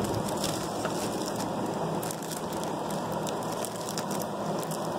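Clear plastic packaging crinkling and rustling as cellophane-wrapped packs are handled, over a steady hiss.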